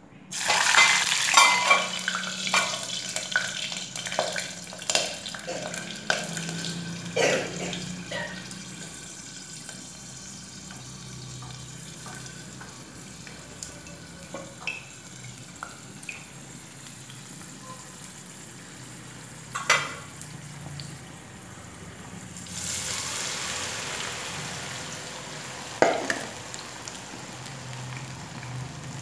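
Marinated soya chunks deep-frying in hot oil. A loud burst of sizzling and spluttering about half a second in, as the food goes into the oil, settles to a steady bubbling hiss. A few sharp metallic clinks sound along the way, and the sizzle swells again near the end.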